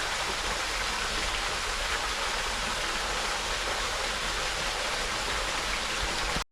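Small creek waterfall splashing steadily into its pool, an even rushing hiss. The sound cuts out abruptly for an instant at the very end.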